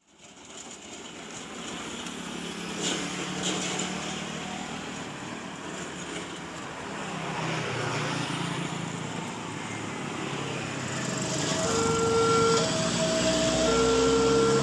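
Road traffic running past a railway level crossing, then, about three seconds before the end, the crossing's electronic warning alarm starts: two tones alternating about once a second, signalling an approaching train.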